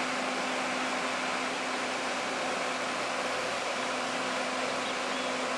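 Steady rushing of a river over rocks, with a faint steady hum from the diesel railcar set crossing the bridge.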